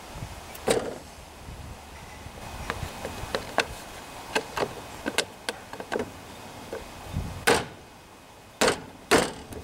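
Plastic centre cap being fitted and pressed onto a riding mower's steering wheel hub: a string of light clicks and taps, with a few louder snaps near the end as it is pushed home.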